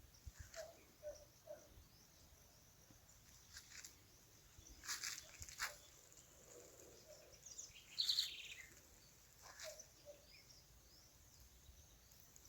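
Birds calling now and then, fairly faint, with quiet gaps between calls: short high chirps, a brief rapid trill about eight seconds in, and a few soft low two-note calls near the start and again near the end.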